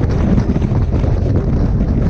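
Steady, heavy wind rush buffeting the microphone of a motorcycle riding at highway speed, with the low rumble of the ride beneath it.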